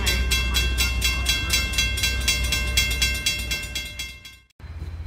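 Railroad grade-crossing bell ringing in rapid, evenly spaced strikes over a low rumble. It fades and cuts off about four and a half seconds in, and a quieter low rumble follows.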